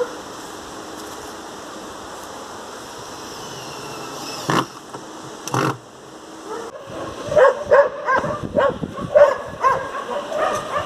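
Two sharp knocks about a second apart near the middle, then a dog barking and yipping repeatedly, a few short calls a second, through the last third.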